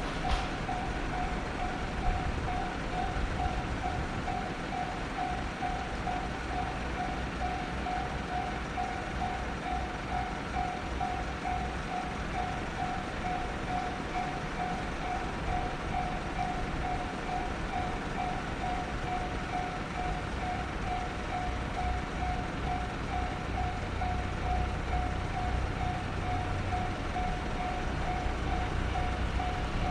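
Japanese railroad crossing warning bell ringing, one high tone repeating at an even rapid pace, over a low rumble.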